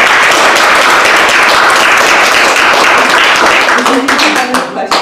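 Audience applauding: dense, steady clapping that thins into a few separate claps near the end and fades out.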